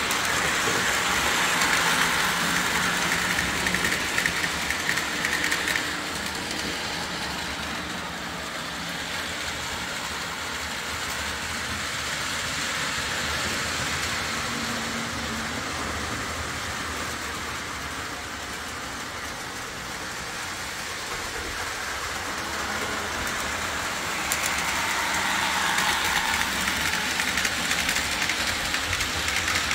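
Lionel O-27 model train pulled by Alco diesel locomotives running on three-rail track: a steady rumble and clatter of motor and wheels that swells louder near the start and again near the end.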